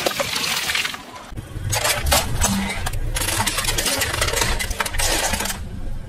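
A car tyre squashing a soft green block, with a dense crackling squish. After a short break the car's engine runs low under the crackle of the tyre rolling slowly over gritty asphalt.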